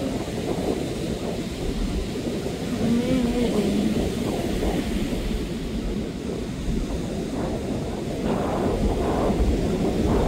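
Wind buffeting the microphone as a steady low rumble, with faint distant voices.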